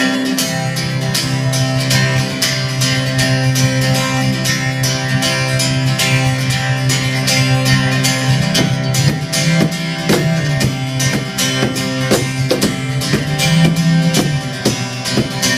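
Guitar playing the instrumental intro of a rock song in an acoustic arrangement: a repeating plucked riff in a steady rhythm over a low bass note held underneath.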